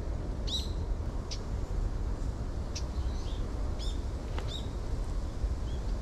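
Small wild birds giving short, sharp calls, about eight spread over a few seconds, over a steady low rumble of wind on the microphone.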